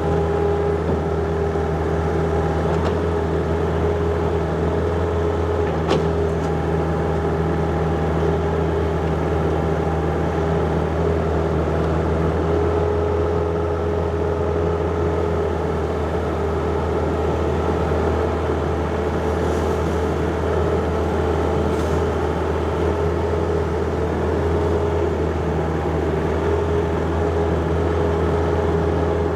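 John Deere 50ZTS mini excavator's diesel engine running steadily at working speed while digging, with a few faint knocks.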